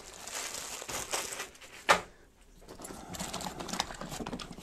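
Tools and small parts being handled in a soft tool bag: rustling of a plastic bag of small fittings and light clatter of items being moved, with one sharp knock about two seconds in.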